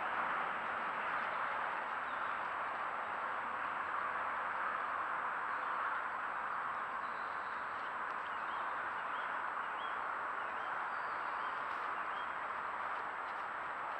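Steady hiss from a trail camera's microphone, with a faint constant high whine running through it. A few faint bird chirps come in during the second half.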